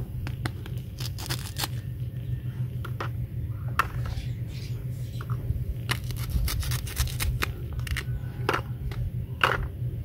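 Plastic toy fruit being handled and cut apart with a plastic toy knife: irregular clicks, taps and short scrapes of plastic on plastic, over a steady low hum.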